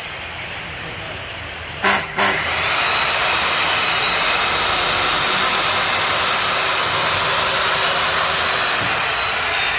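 Makita 100 V power tool with a 180 mm blade switched on about two seconds in with a short blip, its electric motor spinning up to a high, steady whine under no load during a test run; near the end the whine starts to drop.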